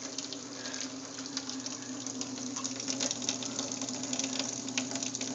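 Drinking from a large plastic soda bottle: fast, faint, irregular crackling and clicking over a steady low hum.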